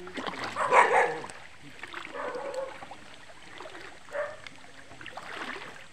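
Water splashing as someone wades through a shallow river, with a loud splash about a second in and softer sloshes after it.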